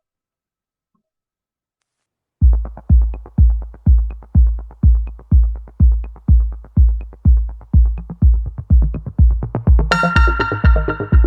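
Electronic background music: after a silent start, a heavy kick drum comes in beating about twice a second, and a bright synth line joins near the end.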